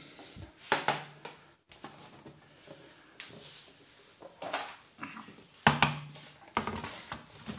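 A few separate knocks and clinks as metal hand tools are picked up and put down and a plastic drum is set on a wooden board.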